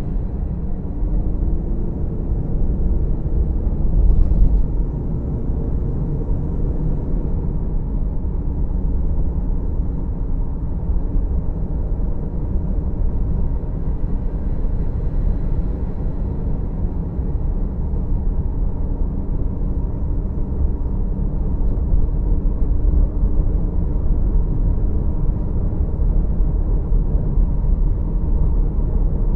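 Car interior road noise while driving at speed: a steady low rumble of tyres and engine, heard inside the cabin. A faint engine tone rises and falls in the first several seconds.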